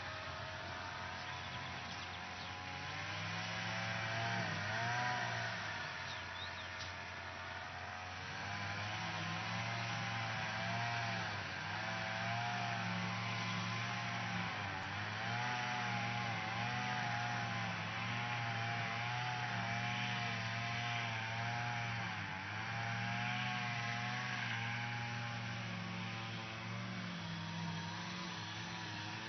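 Lawn mower running steadily, its motor pitch repeatedly dipping and recovering every few seconds as it works, over a steady hiss.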